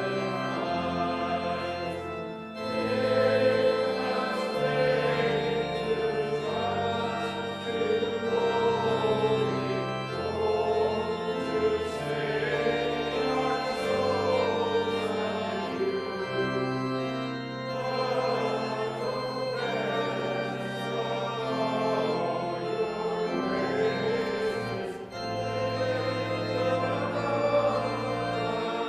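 Organ music in held chords over a moving bass line, with voices singing along.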